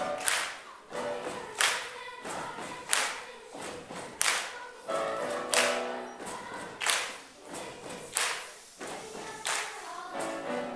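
Children's choir singing, with a sharp hand clap about every second and a quarter.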